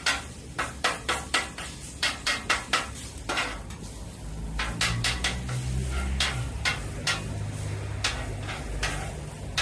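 Metal griddle spatulas scraping and clacking against the steel top of a Vevor 36-inch griddle as a smashed burger patty is worked, a few irregular sharp strikes and scrapes a second. A low rumble comes in about halfway through and dies down near the end.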